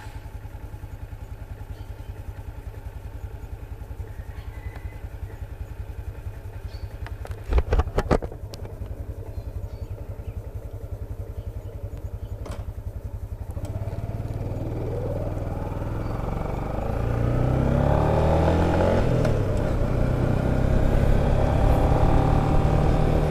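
Yamaha LC135 fuel-injected 135 cc single-cylinder four-stroke idling steadily just after a start. A short clatter of knocks comes about eight seconds in. About fourteen seconds in the bike pulls away, and the engine note rises and falls and grows louder as it picks up speed.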